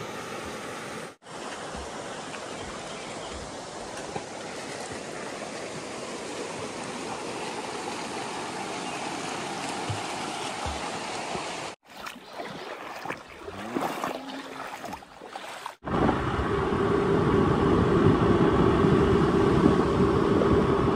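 Shallow river water rushing steadily over stones. About three quarters of the way through, after a short stretch of uneven noise, it cuts to the louder steady rush of a scooter ride: engine and wind on the microphone.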